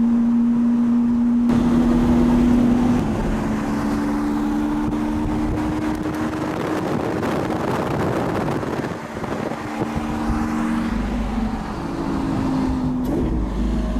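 Lamborghini Aventador SV's naturally aspirated V12 heard on board while driving, running at a steady engine speed whose pitch steps to a new level about three seconds in and again a couple of times near the end, over constant road and wind noise.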